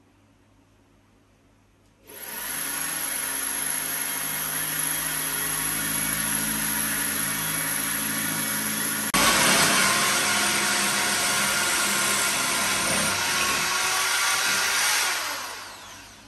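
Corded electric drill boring a hole into a wall, running steadily under load. It starts about two seconds in, steps up louder around nine seconds, and winds down near the end.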